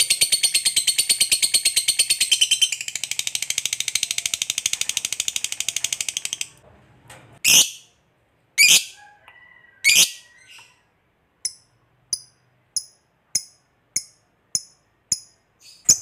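Fischer's lovebird giving its long rapid chattering trill (ngekek panjang), a dozen or so shrill notes a second, which breaks off about six and a half seconds in. Then come three loud shrieks, followed by a string of short sharp chirps about every half second.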